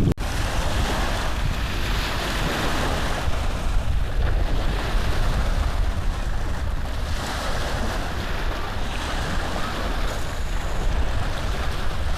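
Steady rushing noise with a low rumble, like wind or rubbing on the microphone, with a brief dropout just at the start.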